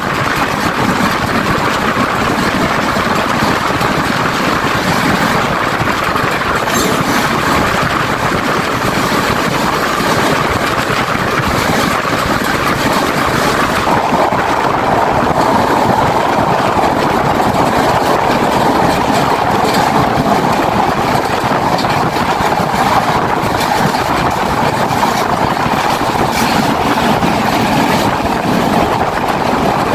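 Express passenger train running steadily along the line, heard from an open carriage window: the continuous noise of the carriage and its wheels on the rails, with a slight change in tone about halfway through.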